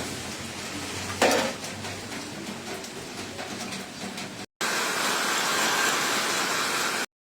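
Metal clatter with one sharp, ringing clank about a second in, then a louder steady hiss that stops abruptly near the end.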